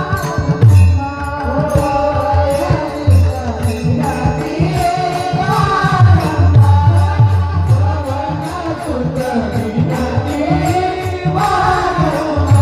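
A woman singing a devotional song with held, gliding notes, accompanied by steady drone tones and a repeating low drum beat.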